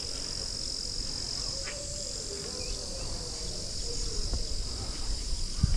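Insects buzzing in one steady, high-pitched drone that holds at an even level throughout.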